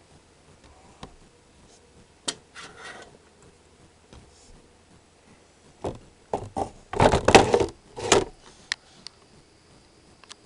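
Skunk scrabbling and rummaging at a wooden feeding window: a few sharp clicks and knocks, then a run of loud rubbing scrapes on wood over about two seconds near the middle-to-end.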